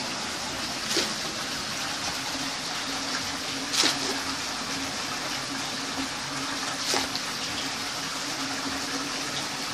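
Steady rush of running water in a concrete tank, with a low steady hum underneath. Three short sharp sounds cut through it, the loudest a little under four seconds in.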